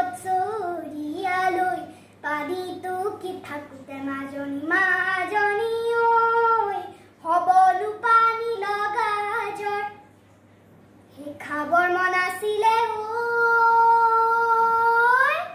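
A young girl singing a Bihu song unaccompanied, in short phrases with brief breaks and a longer pause about two-thirds through. It ends on a long held note that bends upward in pitch just before it stops.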